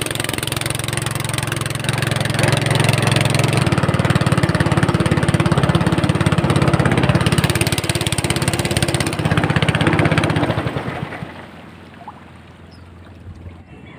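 Small motor boat's engine running steadily underway, then dropping to a much quieter low hum about eleven seconds in.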